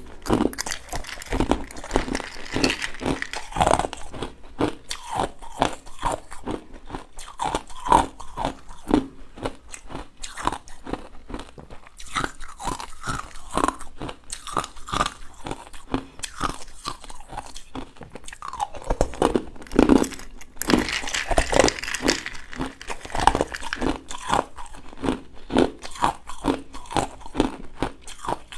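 Frozen purple ice being bitten and chewed with a long run of rapid, brittle crunches, picked up close by a clip-on microphone. The crunching grows denser and louder about twenty seconds in.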